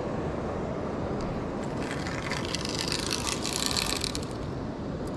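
Spinning fishing reel cranked after the cast, a rapid fine clicking for about two seconds in the middle, over a steady low background rumble.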